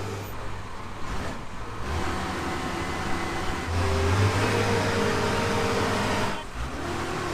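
An engine running steadily, its note shifting a little about two and four seconds in and dipping briefly near the end.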